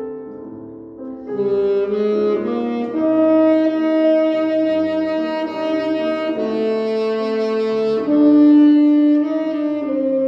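Saxophone playing a slow melody of long held notes with piano accompaniment, easing off briefly about a second in before the line comes back in.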